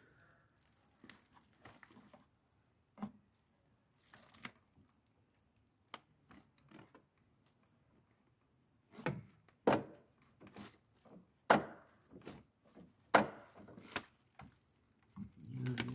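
Scattered clicks and knocks of hand tools and car parts being worked on, with a run of louder sharp knocks from about nine to fourteen seconds in.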